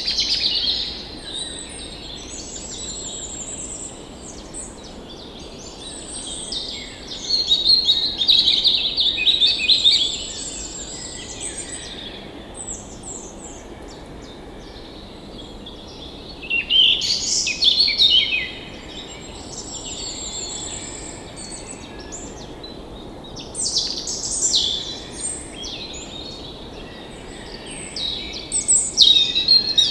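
A chorus of birds singing and chirping, their calls overlapping. Louder bursts of song come about a third of the way in, just past halfway, and near the end, over a steady background hiss.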